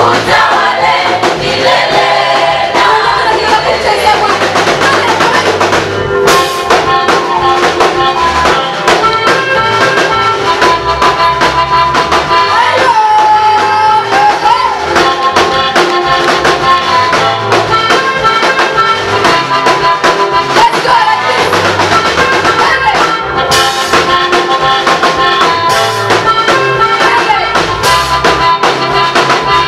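Church praise band playing gospel music with a drum kit and steady held keyboard notes. Voices sing over it during the first few seconds, then the band plays on without singing.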